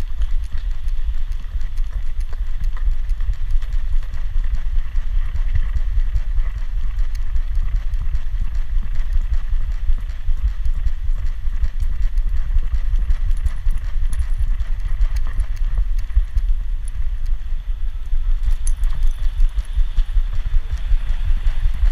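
Body noise of a GoPro strapped to a walking dog's back: a steady run of low thuds and rubbing as each step jolts the camera, over a low rumble.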